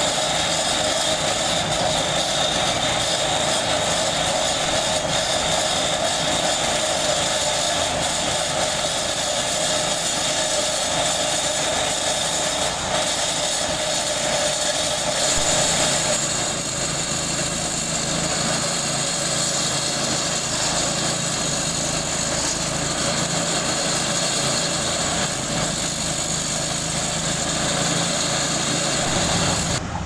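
Walk-behind asphalt cutting saw with a small engine running steadily as its blade cuts along the road surface. The sound changes slightly about halfway through.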